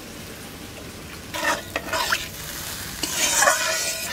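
Curry masala sizzling in a metal pan just after water and spices go in, with a flat metal spatula stirring and scraping the pan in two bouts, about a second and a half in and again near three seconds in, the second the louder.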